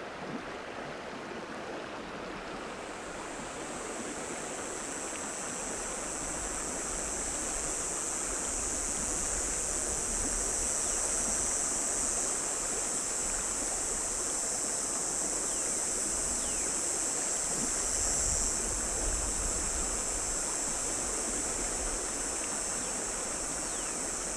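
Shallow river water running over a stony bed, a steady rush that slowly grows louder. A steady high hiss joins about two and a half seconds in.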